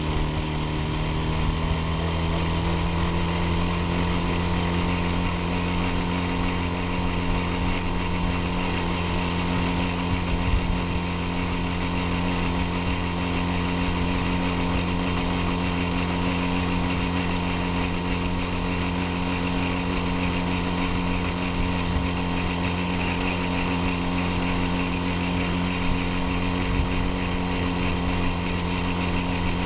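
Saxonette bicycle auxiliary motor, a small two-stroke engine, running steadily at a constant speed, making noises that the owner finds abnormal.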